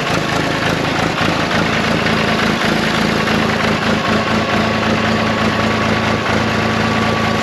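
John Deere 350B crawler dozer's engine idling steadily, just fired up after sitting all winter.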